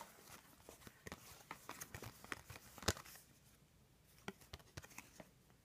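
Faint scattered clicks and light rustles of trading cards being handled and flipped through, with one sharper tick about three seconds in.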